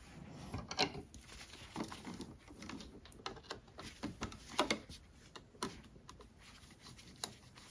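Faint, scattered clicks and taps of an old three-way light switch and its wires being handled, the loudest about a second in and near the middle.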